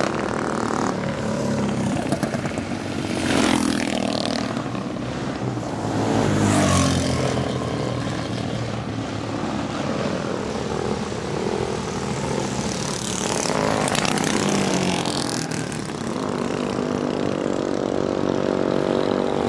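Small mini bike engine buzzing, its pitch rising and falling repeatedly as it revs.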